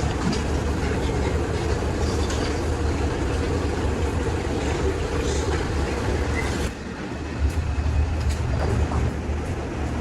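Steady mechanical rumble and rattle, like a vehicle engine running, with an abrupt change about two-thirds of the way through followed by a few knocks.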